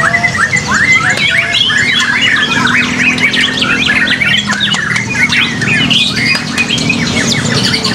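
Several white-rumped shamas (murai batu) singing at once in a dense, overlapping chorus of quick whistles, trills and harsh chattering notes, over a low steady hum.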